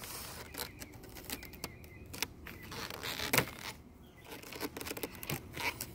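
Gloved hands handling the plastic Flow frames of a beehive super, making irregular light clicks and knocks, with one louder knock about three and a half seconds in.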